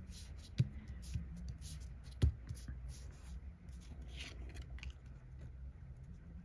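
Paper being handled and pressed down while a label is glued on: light rustling with two small taps, about half a second and two seconds in, over a faint low hum.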